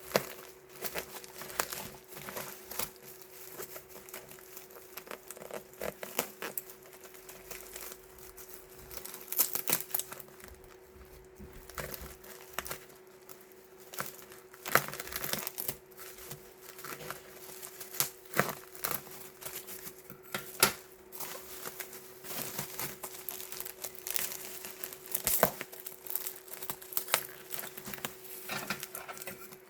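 Protective packaging around a bottled fountain-pen ink set being unwrapped by hand: an irregular run of crinkling and crackling, with scattered sharper rustles and some tearing. A faint steady hum lies underneath.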